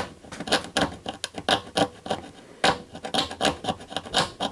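Coating being scraped off the copper pads of an LED backlight strip in a run of short, quick, irregular scraping strokes, exposing bare copper so wires can be soldered on.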